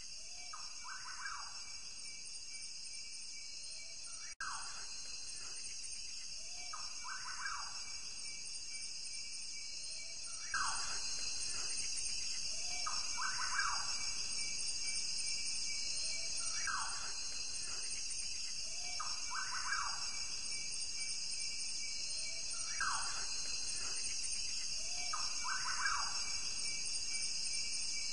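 Natural ambience: a steady chorus of insects, with a bird calling a short two-part phrase about every three seconds. The whole soundscape grows louder about ten seconds in.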